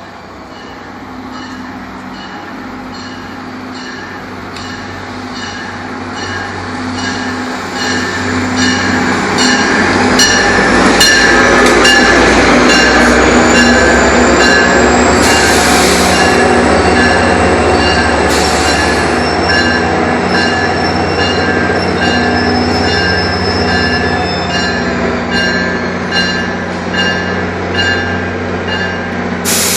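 New Jersey Transit train arriving at a station, its rumble growing louder over the first ten seconds or so, while a warning bell rings in steady, evenly spaced strikes throughout. A short hiss comes about halfway through.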